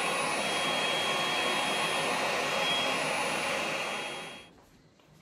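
Vacuum cleaner running steadily with a thin high whine, then switched off about four and a half seconds in, its motor winding down quickly.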